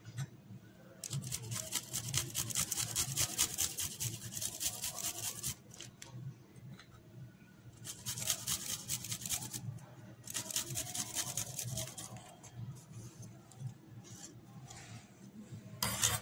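Garlic cloves being grated on a flat metal rasp grater over a steel bowl: quick rasping strokes in three runs of a few seconds each, with fainter scraping between them.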